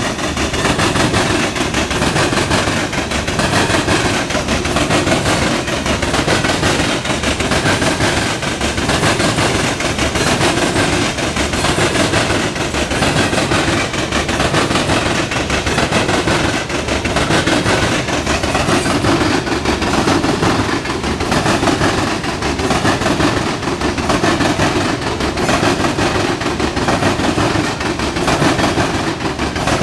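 Loaded coal hopper cars of a freight train rolling past, steady wheel-on-rail noise with a fast run of sharp clacks from the steel wheels passing over the track.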